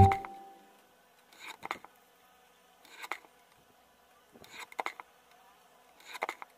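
A paper cutter knife slicing through paper along a steel ruler, four short scratchy strokes about a second and a half apart, one strip cut per stroke.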